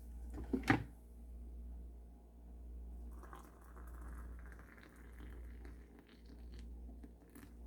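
Hot water poured from an electric kettle into a mug: a steady faint pouring hiss from about three seconds in, lasting about four seconds, after a couple of short clicks near the start.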